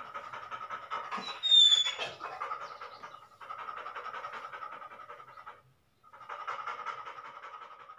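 A dog panting rapidly. A brief, sharp high squeal about one and a half seconds in is the loudest sound, and the panting stops for a moment a little before six seconds in.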